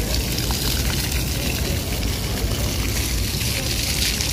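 Small ground-level fountain jets spraying up and splashing onto wet paving, a steady hiss that grows louder near the end, over a low rumble.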